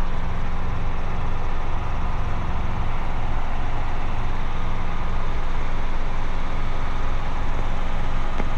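Robinson R22 helicopter in cruise, heard inside the cabin: its piston engine and rotor make a steady drone with a pulsing low beat.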